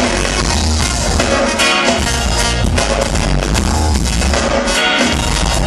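Live ska band playing loud, with heavy bass and a steady drum beat, heard from within the crowd.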